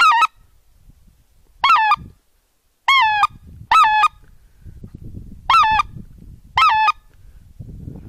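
Six loud goose honks, each a short two-part note that rises and then breaks downward, spaced about a second or two apart. A low rumble sounds between them.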